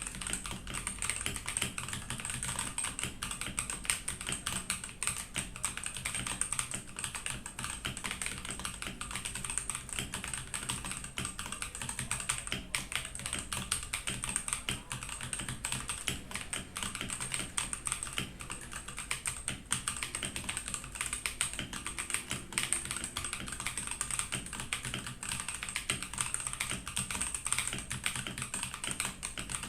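Continuous rapid typing on a Ganss GS3087T mechanical keyboard: a dense stream of keystroke clicks.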